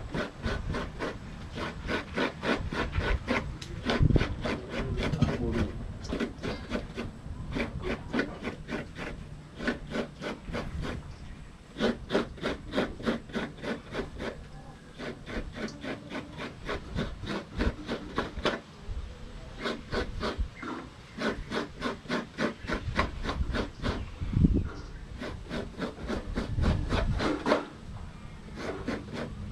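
Mature coconut being grated by hand on a traditional Samoan wooden scraper stool: rapid, even rasping strokes, about four or five a second, with a couple of short pauses.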